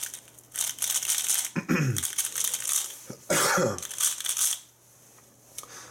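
A plastic 3x3 speedcube being turned in quick clattering bursts as it is set back to the scramble. A short falling vocal sound comes about two seconds in, and a cough-like burst, the loudest sound, about three and a half seconds in. It goes nearly quiet in the last second.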